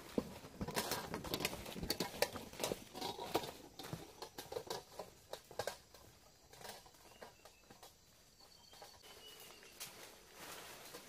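Footsteps crunching and rustling through forest leaf litter and undergrowth, a dense run of crackles and snaps that thins out after about six seconds.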